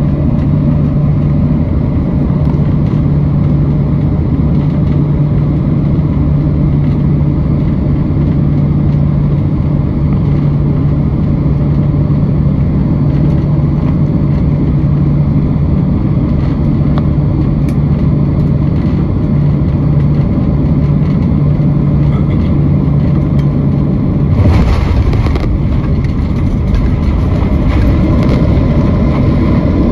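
Jet airliner cabin noise on final approach: a steady rush of engine and airflow with a steady low hum. About 24 seconds in the hum drops out and a sudden burst of noise marks the wheels touching down, followed by the rumble of the landing roll on the runway.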